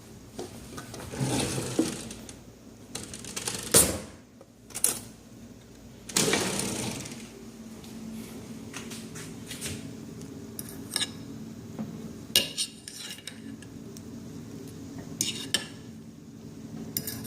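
Kitchen handling sounds: dishes and utensils knocking and clinking, with several sharp clicks. A low steady hum sets in about seven seconds in.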